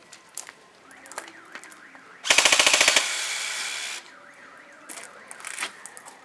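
Airsoft gun firing a short full-auto burst of about ten rapid shots about two seconds in, followed by about a second of steady hiss that cuts off suddenly.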